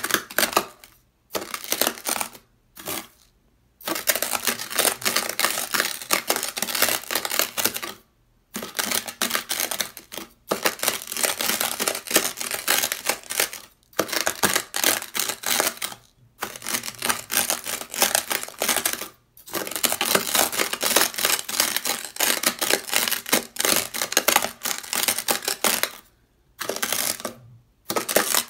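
A steel kitchen knife and a white ceramic knife scrape and press through a heap of dry, coarse beach sand on sandpaper, making a gritty crunching. It comes in strokes a few seconds long, separated by short silences.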